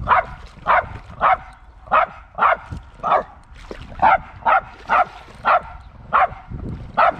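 Dog barking over and over in short, high barks, about two a second in a steady, insistent run.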